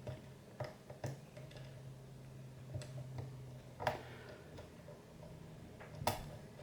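Scattered small metallic clicks of a disc-detainer pick working the discs inside an Oxford Scoot XA5 alarm disc lock, about six irregular ticks, the sharpest near four and six seconds in, over a faint steady low hum.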